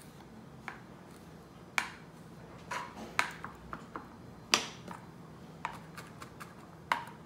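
Small kitchen knife knocking on a plastic cutting board while chopping fresh parsley and rosemary: about a dozen irregular, sharp knocks, the loudest about four and a half seconds in.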